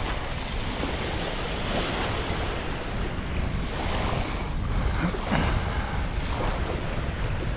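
Ocean surf washing onto the beach, with wind buffeting the microphone in a steady deep rumble.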